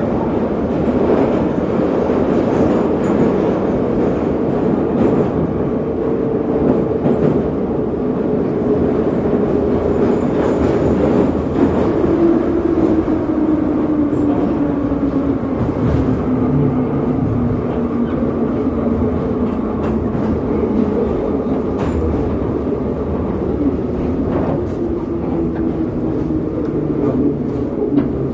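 Metro train running, heard from inside the carriage: a steady loud rumble of wheels and motors. A motor whine falls in pitch in the middle as the train slows, and it pulls into a station near the end.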